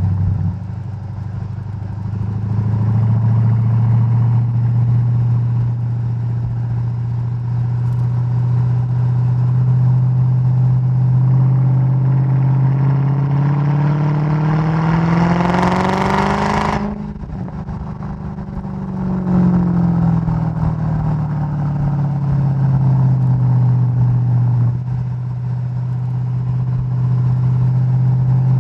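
Mercedes-Benz E55 AMG (W211) supercharged 5.4-litre V8, heard at the exhaust as the car accelerates: the engine note climbs steadily for about fifteen seconds, then cuts off sharply as the throttle is lifted, with some crackling on the overrun. The pitch then falls away as the car slows, and settles into a steady cruise near the end.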